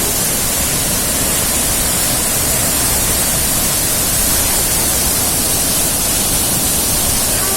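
Palaruvi waterfall's falling water: a steady, loud rushing noise with no breaks.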